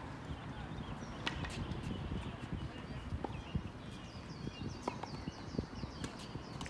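Mixed-doubles racket rally: sharp, irregularly spaced hits of ball or shuttle, with many short squeaks from players' shoes on the court floor.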